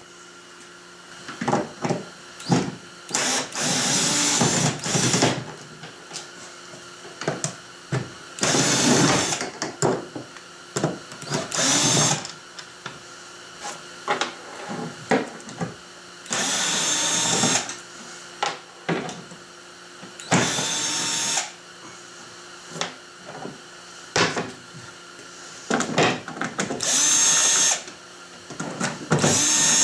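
Ryobi cordless drill-driver backing out the screws that hold the kayak's cockpit mounting boards, in about seven short runs of a second or two each. Small clicks and handling knocks come between the runs.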